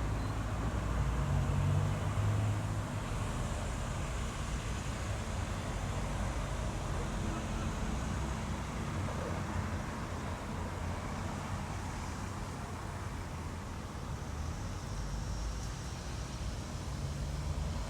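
Steady road traffic noise: a continuous rumble of cars, a little louder in the first two seconds.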